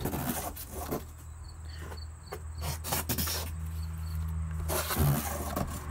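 Cardboard box lids and packaging being handled, slid and lifted, with rustling and scraping. Underneath is a steady low hum.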